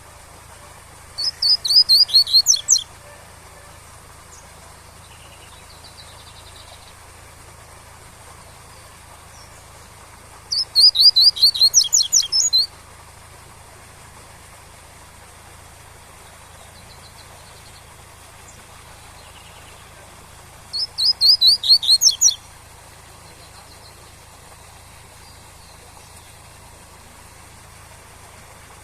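Double-collared seedeater (coleiro) singing its tui-tui song: three phrases of rapid high notes, each about a second and a half to two seconds long, repeated roughly every ten seconds. Beneath them runs the steady rush of a waterfall.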